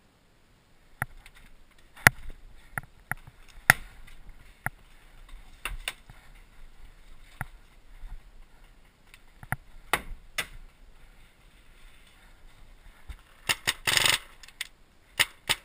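Paintball markers firing: scattered single sharp pops of shots across the field. Near the end comes a quick run of louder, closer shots, the player's own marker firing over the bunker.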